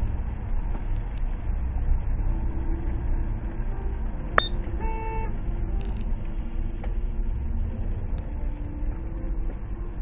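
Steady low road and engine rumble inside a moving car's cabin, with a sharp click and then a short car-horn beep about halfway through.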